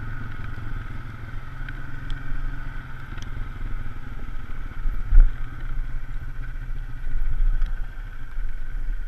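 Polaris RZR side-by-side engine running while driving over a dirt trail, with scattered rattles and one loud thump about five seconds in.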